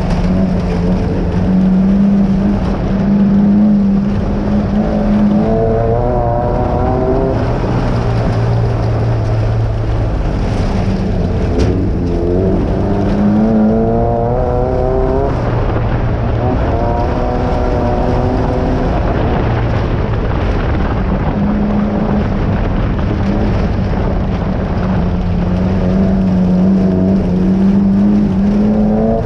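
Class 9 race buggy's air-cooled VW engine running hard, heard from inside the car, its pitch rising several times as it accelerates, with a steady hum between the climbs.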